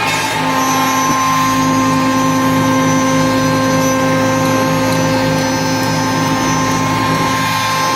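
CNC router running: a steady machine whine with several fixed tones over a pulsing hum. A further tone comes in about half a second in and holds for most of the rest.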